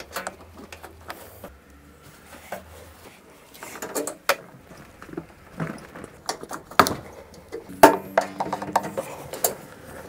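Scattered clicks and knocks, a few of them sharp, from hands and parts being handled on a stripped front-loading washing machine's tank and frame.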